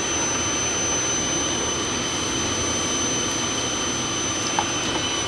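Electric blower forcing air into a forge fire, running steadily, with one light tap near the end.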